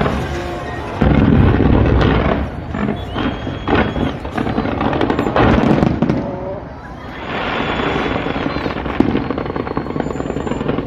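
Fireworks going off: a deep, loud boom about a second in, then a run of sharp bangs and crackles. After a short lull near seven seconds, a steady dense noise takes over.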